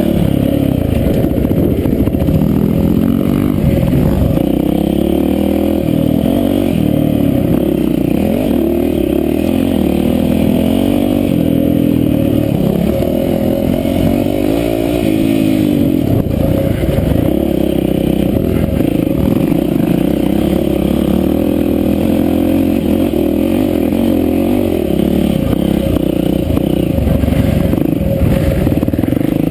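Yamaha WR450F four-stroke single-cylinder dirt bike engine, heard on board, revving up and down over and over as the rider works the throttle and gears on a dirt track.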